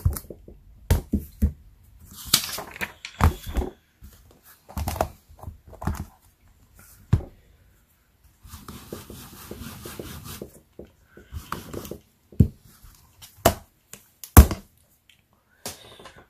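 A clear acrylic stamp block and stamp being handled and scrubbed clean on a black-fibre stamp-cleaning pad. Scattered sharp taps and knocks of the block on the hard surface come with a soft rubbing hiss from the scrubbing for about two seconds past the middle. The sharpest knock comes near the end.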